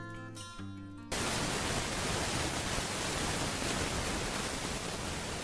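Acoustic guitar music, cut off about a second in by a steady, even hiss of outdoor noise on the camera microphone.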